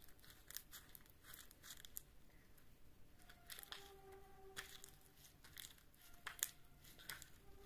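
Faint sticky clicks and squelches of runny slime being squeezed and kneaded between the fingers.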